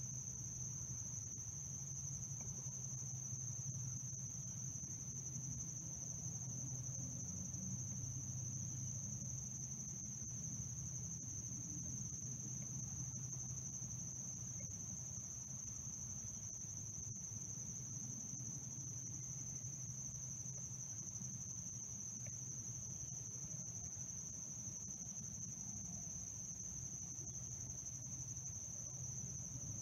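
Crickets singing one steady, unbroken high-pitched trill, over a faint, steady low rumble.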